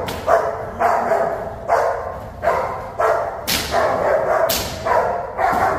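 Female protection dog barking at a decoy in a rapid string of barks, nearly two a second, while lunging against her leash. It is aggressive barking, what the trainer calls the true aggression coming out of her.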